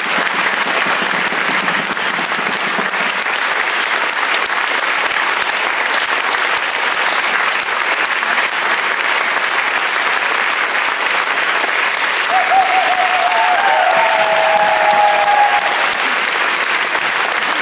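Audience applauding steadily, a dense even wash of clapping from a full house.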